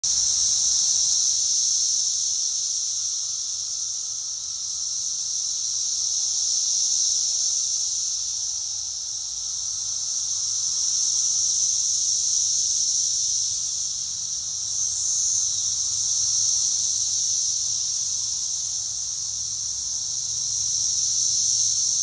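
Massed chorus of Brood X periodical cicadas: a loud, steady high-pitched buzz that swells and fades slowly every four to five seconds.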